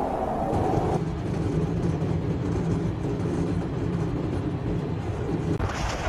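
Blizzard wind buffeting the microphone: a steady, low rushing noise. Near the end it gives way to a brighter hiss of windblown storm.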